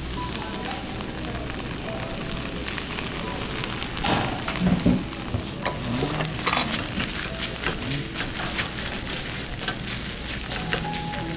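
Food sizzling as it fries in a pan, a steady hiss with many short clicks and scrapes.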